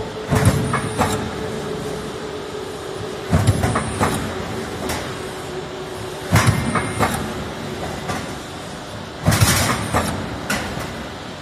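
Monterrey step-tile roll forming machine running: a steady motor hum, with a heavy press thump and clank about every three seconds, four times, as it stamps a tile step into the steel sheet.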